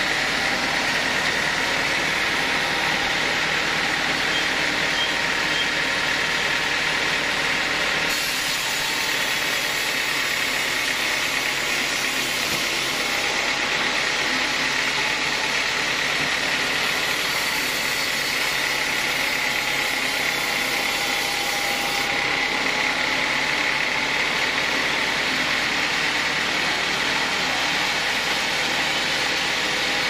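Large sawmill band saw running steadily with a constant high whine, sawing lengthwise through a teak log; the cut adds a brighter hiss from about eight seconds in until a little past twenty seconds.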